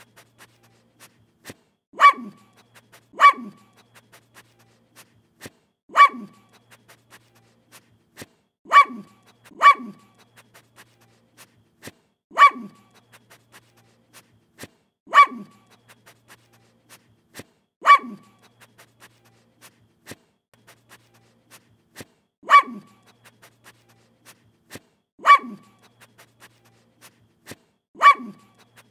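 A dog giving single barks, one at a time every few seconds, about eleven in all, each dropping in pitch at its tail. Between the barks come quiet, short sniffs close to the microphone.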